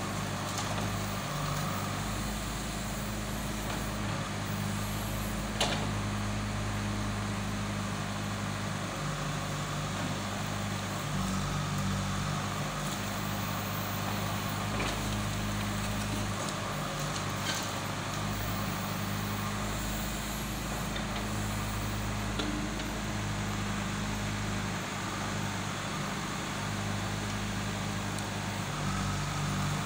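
JCB 3DX backhoe loader's diesel engine running steadily while its backhoe arm digs and dumps soil, the engine note shifting slightly as the hydraulics work. A single sharp knock about six seconds in.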